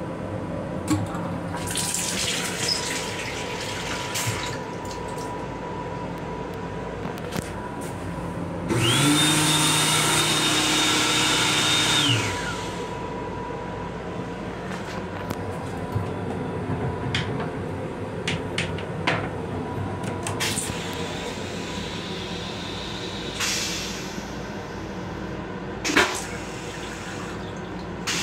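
Water runs briefly from the faucet of an M7 railcar restroom's combined dryer, faucet and soap unit. A few seconds later, a motor whines quickly up to a steady high pitch, runs for about three seconds and winds down. Scattered clicks follow, the strongest near the end.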